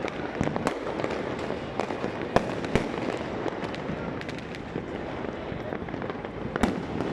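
Many fireworks going off at once, a dense continuous crackle of distant bangs. A few sharper, louder reports stand out, the loudest about two and a half seconds in, then just after, and again near the end.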